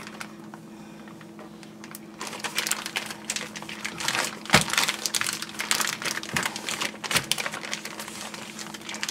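Gallon Ziploc plastic bag crinkling and rustling as hands press the air out of it and squeeze it around the marinated meat inside. The crinkles are irregular and grow busier from about two seconds in.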